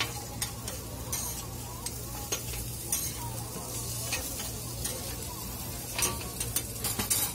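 Shredded-potato hash browns sizzling on a flat-top steel griddle while two metal spatulas scrape and tap against the plate, with a quick run of strikes near the end. A steady low hum runs underneath.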